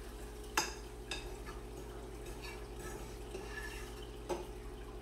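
A spoon stirring chicken taco meat in a frying pan, scraping and knocking against the pan, with two sharper clinks about half a second in and near the end. A steady low hum runs underneath.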